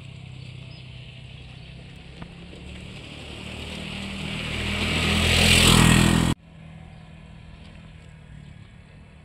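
A motor vehicle coming along the road, its engine and tyre noise growing steadily louder to a close pass, then cut off abruptly a little over six seconds in. A quieter steady outdoor background follows.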